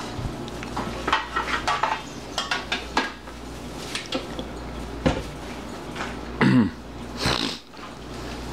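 Clinks and knocks of a stand mixer's stainless steel bowl and flat beater being handled, the mixer just switched off to check the pudding.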